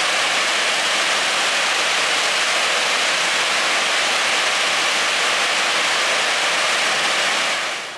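Steady, loud rushing hiss of iron ore pellets pouring down the ore dock's steel chutes into a lake freighter's cargo hold. It fades away near the end.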